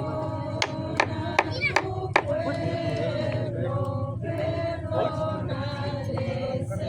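A group of people singing a hymn together, holding long notes. A few sharp clicks in the first two seconds.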